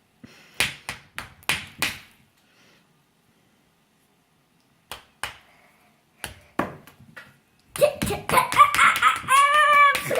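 Sharp taps and knocks of a small digging tool striking a plaster dig-kit block, in short clusters with a pause between them. Near the end the tapping gets busier and a child's wordless, sing-song vocalizing comes in over it.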